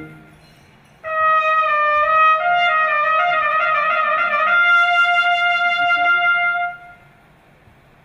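Background music: a slow solo melody of long held notes with a brief run of changing notes in the middle. It starts about a second in and fades out around seven seconds.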